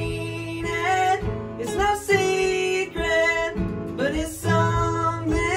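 Two acoustic guitars played together, strummed chords with a man singing over them.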